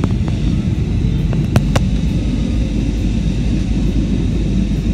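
Steady low roar of an Airbus A320's engines and rushing air, heard inside the passenger cabin, with a few sharp clicks about a second and a half in.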